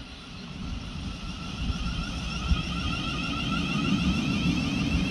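Thameslink Class 700 electric multiple unit running in along the platform: wheels rumbling on the rails under a steady electric whine from its traction equipment, growing louder as it draws alongside.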